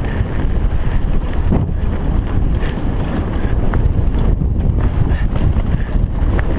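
Heavy wind rumble on an action camera's microphone during a mountain-bike ride, with a few sharp clicks and rattles from the bike over rough trail.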